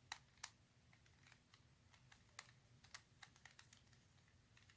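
Faint, irregular plastic clicks of a 4x4 Rubik's cube being handled in the hands.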